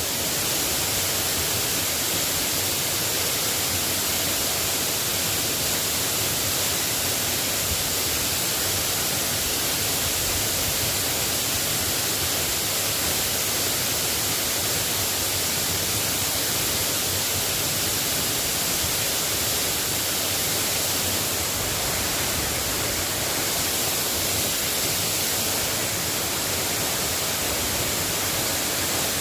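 Steady rain falling, an even hiss that doesn't change.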